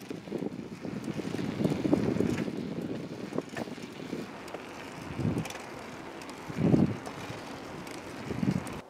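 Wind buffeting the camera's microphone on a moving bicycle: a steady rushing hiss with irregular low gusts that swell and fade, the strongest about five, seven and eight and a half seconds in.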